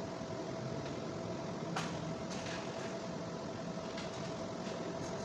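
A steady background hum with a faint, even tone, and a few light clicks and rustles of coiled insulated electrical wire being handled, about two seconds in.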